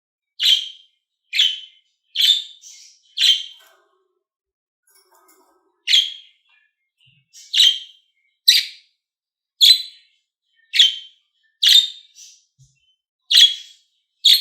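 Budgerigar giving short, sharp chirps, about one a second, with a pause of about two seconds a few seconds in.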